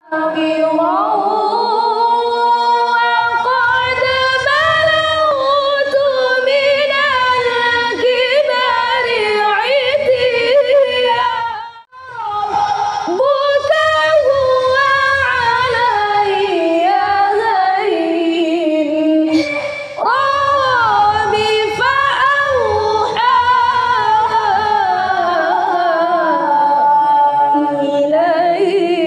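Quran recitation (tilawah) chanted unaccompanied in a high voice, with long ornamented phrases that slide up and down in pitch. It breaks off briefly for breath after about twelve seconds and again near twenty seconds.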